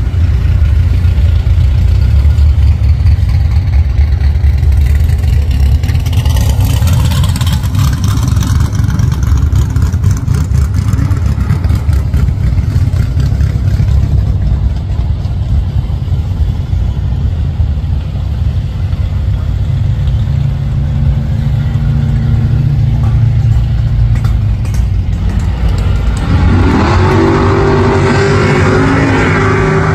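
Drag-racing muscle car engines rumbling loudly at the starting line, then revving hard near the end with a sharp rise in pitch as the pair launches down the strip.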